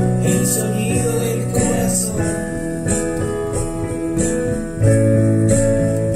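Instrumental passage of a song: held keyboard chords over a bass line, with a light, regular high percussion beat. The chord changes and the music gets louder about five seconds in.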